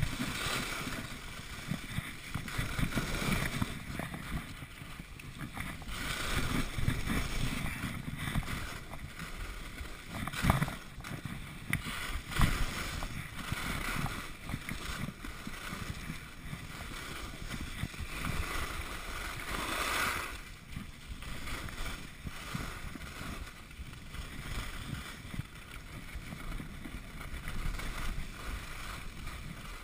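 Skis scraping and hissing over packed snow on a downhill run, with wind rushing over the microphone. A couple of sharper knocks come about ten and twelve seconds in.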